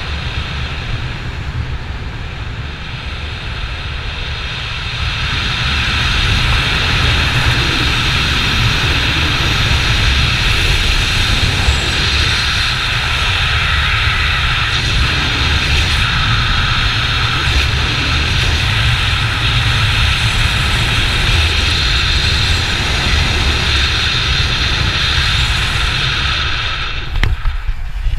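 Wind rushing over the camera's microphone as a skydiver flies his parachute canopy down to land; the rush grows louder about five seconds in and breaks off near the end as he touches down on grass.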